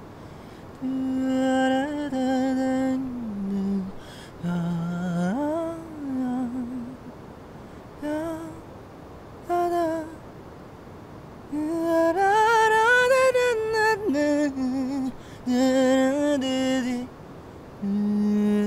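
A man humming a slow, wordless melody in short phrases with brief pauses, trying out a tune he is writing.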